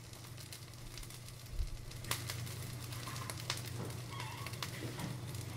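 Marinated chicken breasts sizzling in hot oil in a stainless steel skillet, with scattered pops as water from the marinade turns to steam under the oil and spits it up.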